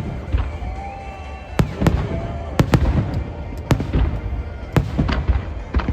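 Aerial fireworks going off in a rapid string of sharp bangs, about a dozen, often two in quick succession, over a steady low rumble.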